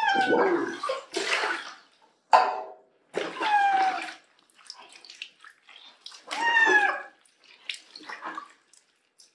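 Wet cat meowing three times, each call falling in pitch, among water splashing as a cloth is dipped and wrung in a basin of bathwater.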